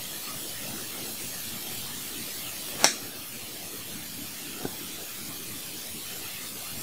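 A pencil poking small holes in the soil of a seed tray: two sharp clicks, about three seconds in and a fainter one a couple of seconds later, over a steady hiss.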